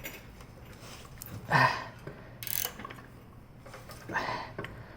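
Threaded-rod bushing press being worked with a wrench, turning the nut to draw a tight solid subframe bushing into its tube, with mechanical clicking and three louder noises, the loudest about a second and a half in.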